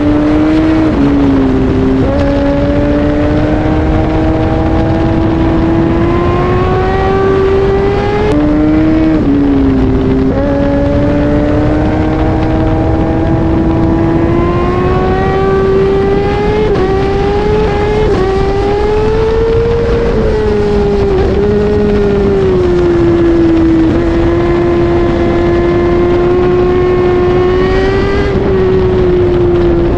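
Kawasaki Ninja ZX-10R's inline-four engine running at high revs under load. Its pitch climbs slowly, drops back at gear changes about a second in and again about eight seconds in, then eases and rises again later. Wind and road rush run underneath.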